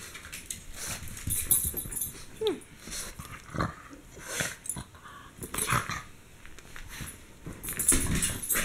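A fawn pug making irregular bursts of breathy noises while playing with a toy, with a short falling note about two and a half seconds in.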